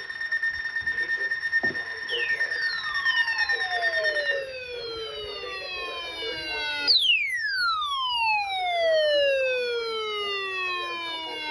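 NOAA Weather Radio 1050 Hz warning alarm tone, a steady high tone for about the first four and a half seconds, the tone that marks an alert as a warning. Two long siren-like sweeps falling in pitch come in about two and seven seconds in, the second one louder.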